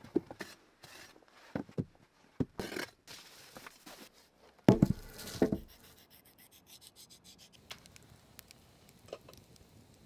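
A series of short scrapes, knocks and rubbing sounds of hand work, with the loudest rough scraping cluster about halfway through and only a few faint ticks after it.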